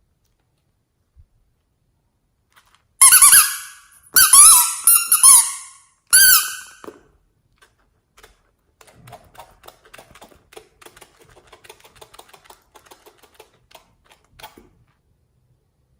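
Four loud squeaks that bend in pitch, then a long run of soft, quick clicks and crackles from slime being pressed and worked by hand.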